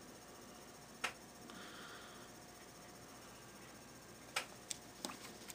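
Quiet handling of comic books: a sharp tap about a second in, a short soft rustle, then a cluster of quick clicks near the end as the books are moved about.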